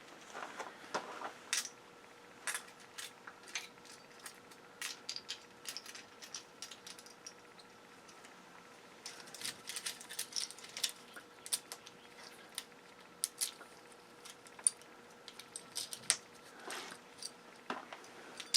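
Small metal circuit-breaker parts clicking and clinking as they are handled and pulled apart, in many quick irregular ticks, over a faint steady hum.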